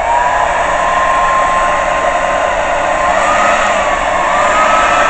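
Hair dryer running steadily, a loud rush of air with a motor whine that rises and dips a little about three and four seconds in.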